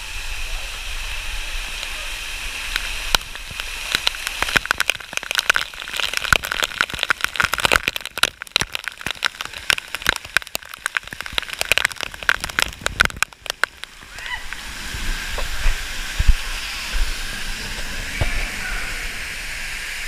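Water pouring from a waterfall over rock work, splattering onto the action camera in a dense, irregular patter of drops from about three seconds in to about thirteen. Steady rushing water runs underneath, with faint crowd voices.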